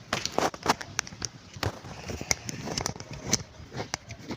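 Irregular metallic clicks and knocks of tools and car parts being handled while a stabilizer link is prepared for fitting.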